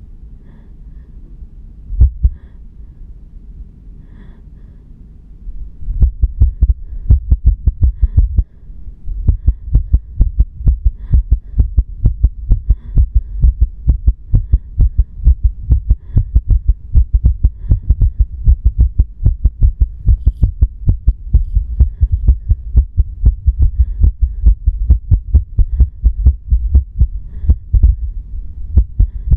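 Human heartbeat heard close up through the chest, running fast, just after a bout of cerebral anemia (a near-faint): rapid heart rate that the uploader labels an irregular heartbeat. It is faint at first, with one loud thump about two seconds in, then loud, quick, deep beats from about six seconds on.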